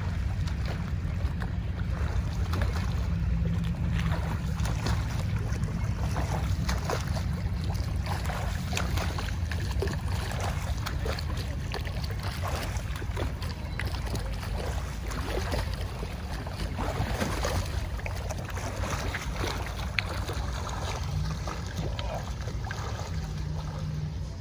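Irregular splashing from a swimmer's one-armed freestyle strokes and finned kicks, over a steady low rumble.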